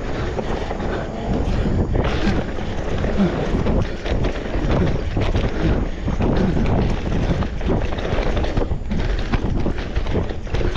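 Wind buffeting the microphone over a constant clatter of irregular knocks and rattles from an electric mountain bike being ridden over rough trail.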